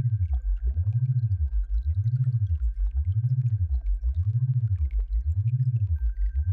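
Synthesized sound-therapy tone for tinnitus relief: a low hum glides up and then back down in pitch about once a second, in a steady repeating cycle. A faint, steady high whistle runs above it.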